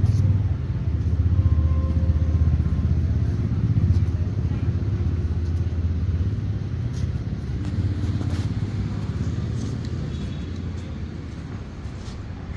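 Steady low vehicle rumble, loudest in the first few seconds and slowly fading.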